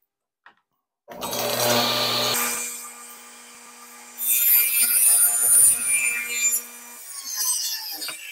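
Table saw starting up about a second in, its blade running with a steady hum, then cutting through a wooden picture-frame side on a crosscut sled for about two seconds in the middle. The saw is switched off near the end and the blade winds down.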